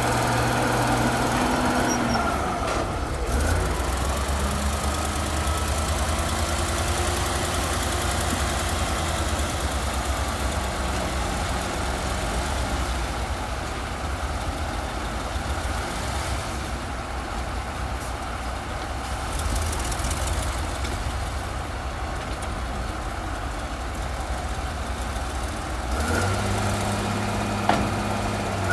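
Heavy diesel engines of a bulldozer and a dump truck running steadily, the low engine note shifting a few times as the machines work.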